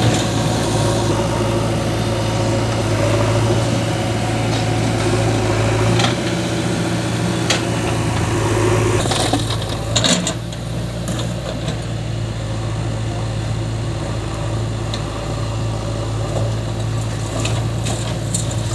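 Diesel engine of a JCB 3DX backhoe loader running steadily under load as it digs and dumps soil, with a few sharp knocks as the bucket works and soil drops into the tractor trolley.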